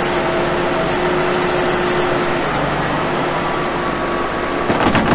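New Holland loader tractor's diesel engine running steadily while it moves snow with its front bucket, with a steady tone over the engine noise. A brief clatter comes near the end.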